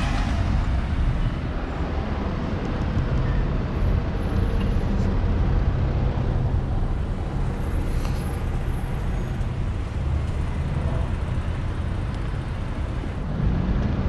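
City street traffic noise: a steady rumble of cars and buses going by.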